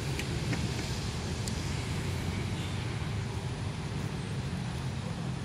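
Steady hum of road traffic, with a few faint clicks in the first second and a half.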